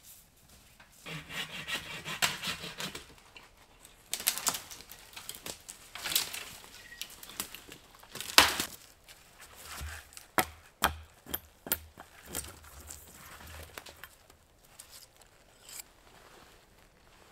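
Wood being handled: a stretch of scraping, then a run of irregular sharp wooden knocks and cracks, the loudest about eight seconds in, thinning out toward the end.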